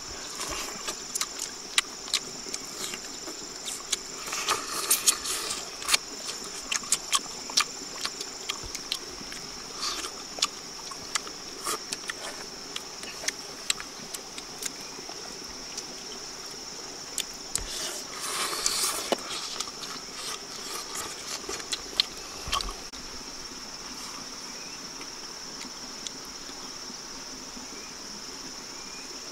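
A steady high drone of insects, with frequent sharp clicks and bursts of rustling from hands and mouths at work on a grilled fish laid on banana leaves; the clicks and rustles stop a few seconds before the end, leaving only the insects.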